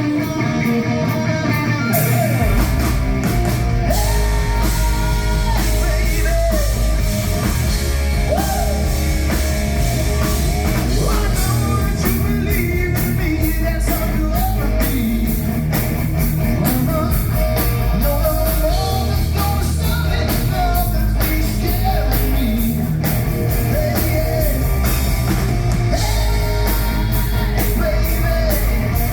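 Rock music: a band with electric guitar, joined by drums and bass about two seconds in, playing steadily.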